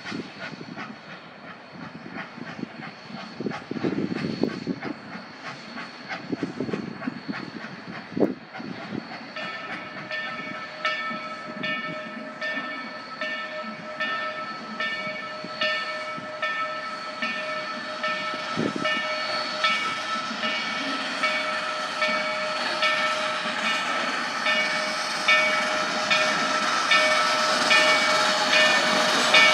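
Narrow-gauge steam locomotive 493, a K-37 2-8-2, approaching with a log train, steam hissing and the sound growing louder as it nears. From about ten seconds in, a bell-like ringing repeats about once a second.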